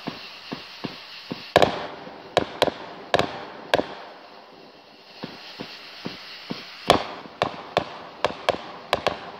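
Aerial fireworks exploding: a rapid, uneven run of sharp bangs, the loudest about one and a half seconds in and again near seven seconds, with a short lull in the middle.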